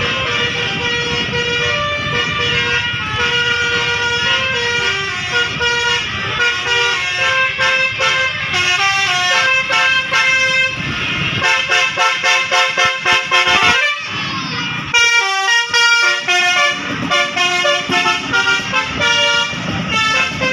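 Basuri multi-tone bus horn (telolet) playing a melody of stepped notes, with stretches of fast, short staccato notes about halfway through.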